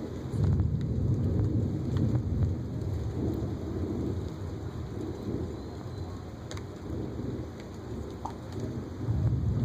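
Thunder rumbling, with rain falling. The rumble swells about half a second in and slowly eases off, then picks up again near the end.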